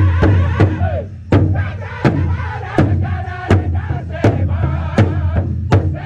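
Powwow drum group singing: many sticks striking a large bass powwow drum together under loud, high male voices singing in unison. About a second in, the fast, even beat changes to slower single strokes about every 0.7 seconds.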